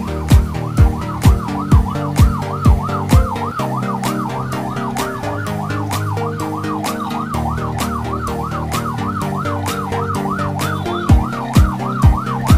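Ambulance siren in fast yelp mode, its pitch rising and falling about three to four times a second, over background music with a steady beat.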